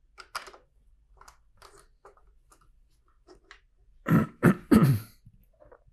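Small plastic LEGO pieces clicking lightly as they are handled and pressed together, then a person clears their throat about four seconds in: three short sounds in quick succession, the loudest thing heard.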